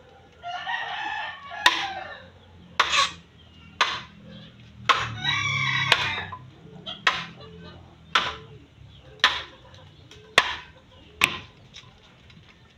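Sharp chopping strokes on bamboo, about one a second, from a bolo knife worked into the top of a bamboo post; these are the loudest sounds. A rooster crows twice, each crow about a second long, one near the start and one about five seconds in.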